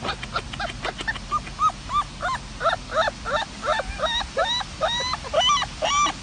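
Puppy giving a rapid run of short, high squeaky yelps, about three a second, that grow quicker and higher toward the end.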